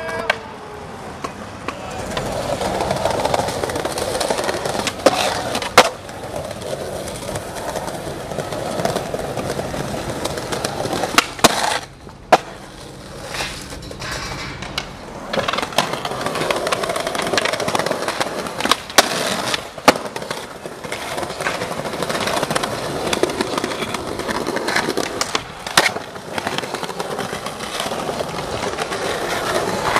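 Skateboard wheels rolling over stone paving slabs, with sharp clacks of the board popping and landing several times through the stretch.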